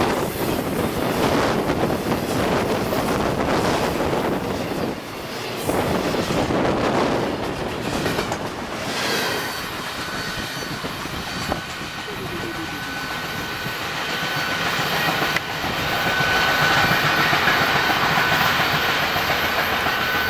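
Florida East Coast Railway freight train of semi-trailers on flatcars rolling past close by, its wheels clattering over the rail joints. About nine seconds in the rumble thins as the last car passes and pulls away, leaving a steady high-pitched wheel squeal that grows louder near the end.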